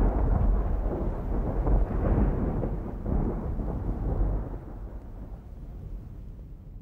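Rolling thunder, a deep rumble that is loudest at the start and dies away gradually over several seconds.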